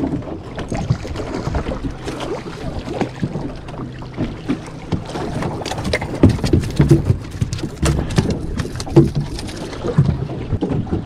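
Irregular knocks and thumps on the aluminum hull and floor of a small fishing boat as a freshly landed walleye is handled and dropped onto the floor, with water and wind noise on the microphone.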